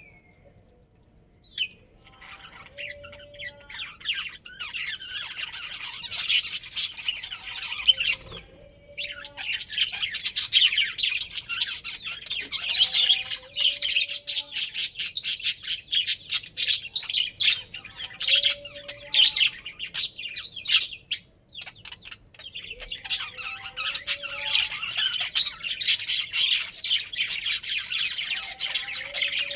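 Budgerigars chirping: a dense run of rapid, high chirps and warbles. It builds a few seconds in, breaks off briefly about two-thirds of the way through, then starts again.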